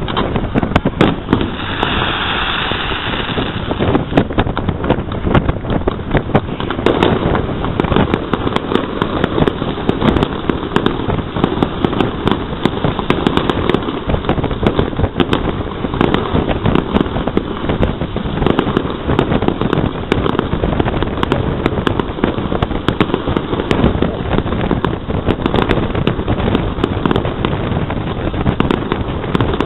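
Fireworks display going off: a continuous barrage of bangs and crackling pops, with a brief hiss about two seconds in.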